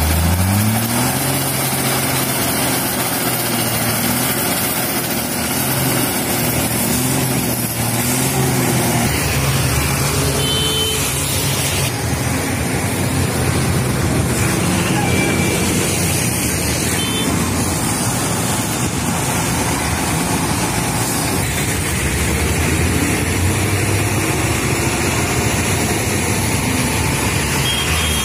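Heavy recovery crane truck's diesel engine running under load. It revs up at the start and rises and falls in pitch for the first several seconds, then runs steadily.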